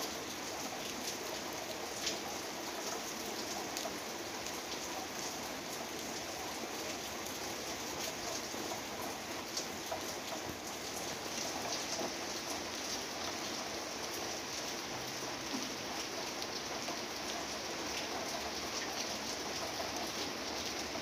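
Steady rain falling on the leaves of a fig tree and surrounding vine foliage, a continuous patter with many individual drops ticking through it.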